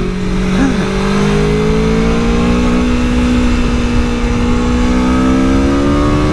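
Aprilia Tuono V4 1100's V4 engine pulling under acceleration, its note rising slowly and steadily, with wind rush underneath.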